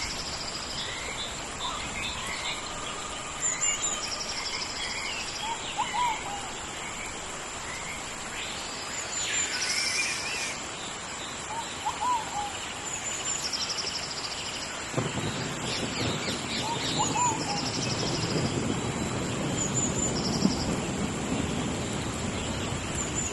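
Tropical rainforest ambience: many birds calling in short chirps, trills and whistles over a steady high insect drone. A rushing rain noise underneath grows clearly louder about two-thirds of the way through.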